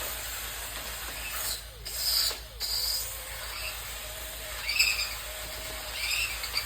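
Wire wheel spinning against engine parts to clean them: a steady scratchy hiss with brief louder, sharper bursts about two seconds in and again near five seconds.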